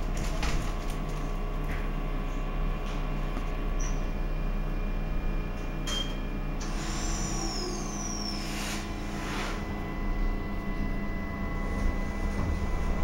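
Steady electrical hum of a Stadtbahn light-rail car's onboard equipment. About six seconds in comes a short high beep, then a whistle falling in pitch and a few dull thuds, typical of the car's doors closing.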